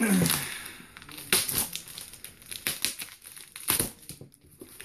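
Cardboard shipping box being opened: packing tape slit and pulled, and plastic bubble wrap crinkling, with a few sharp crackles.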